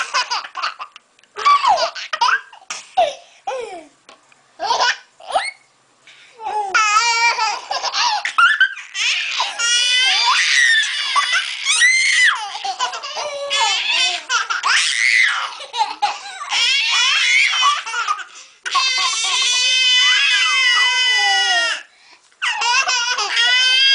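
A baby laughing in repeated high-pitched bursts of giggles and belly laughs, with a young girl laughing alongside. Near the end come long, steady, high-pitched held sounds.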